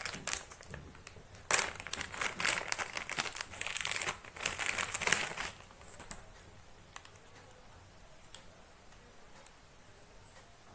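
A thin clear plastic bag crinkling and rustling as it is handled and opened by hand. There are dense, sharp crackles starting about a second and a half in, and they die away about four seconds later.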